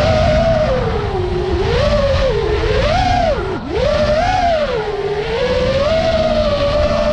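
Motors of a 5-inch iFlight Nazgul5 FPV quadcopter on a 6S battery, whining in flight. The pitch rises and falls with the throttle, and drops sharply about halfway through before climbing again, over a low rumbling noise.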